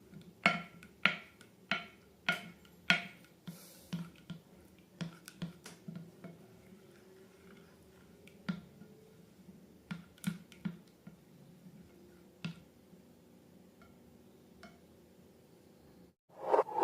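Sharp snapping clicks: five loud, evenly spaced ones in the first three seconds, then fainter, scattered clicks with quiet gaps between.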